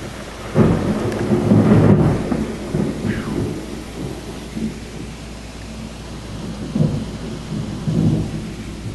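Thunder rumbling: it breaks in sharply about half a second in, rolls loudest for the next two seconds, then fades into smaller rolls, one near the end. Steady rain runs underneath.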